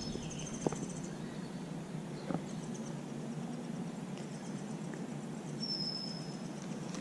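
Outdoor ambience: a steady low background hum, with a bird's thin, high, level whistle at the start and again about six seconds in, a faint chirring trill in the first second, and two small clicks.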